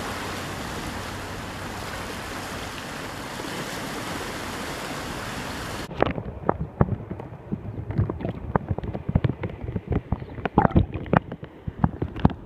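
Steady rush of wind and surf on the open water. About six seconds in it cuts abruptly to muffled water sloshing with irregular knocks and splashes, heard underwater.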